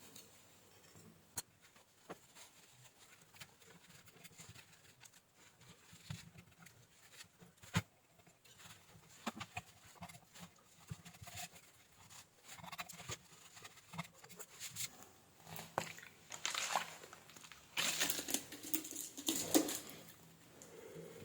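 Bench handling noises while working on an amplifier: scattered small clicks and taps, becoming denser rubbing and scraping in the last few seconds.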